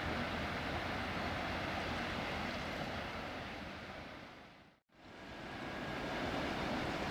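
Steady outdoor rushing noise with a low rumble underneath. About four and a half seconds in it fades down to silence and then swells back up, as at a cut in the recording.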